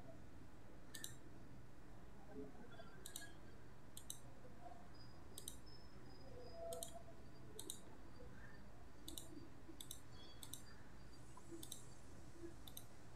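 Computer mouse button clicking: about a dozen faint, sharp clicks, spaced irregularly about a second apart.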